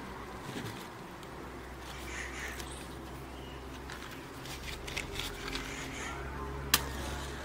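A matchbox being handled, with small scratches and clicks, then a single sharp strike of a match against the box a little before the end, the loudest sound here. Faint bird chirps sound in the background.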